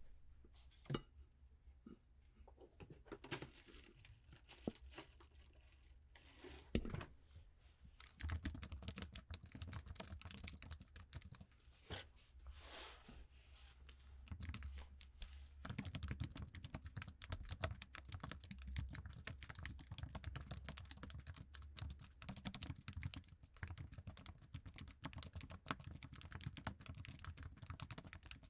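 Typing on an iMac's stock Apple keyboard: a few scattered keystrokes at first, then from about eight seconds in fast, steady typing with a sticky sound to the keys.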